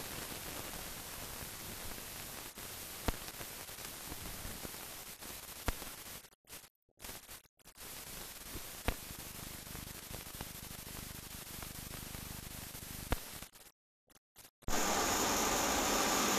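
Steady hiss of an old film soundtrack with no program sound, broken by a few sharp clicks and two short dropouts to silence, coming back louder near the end.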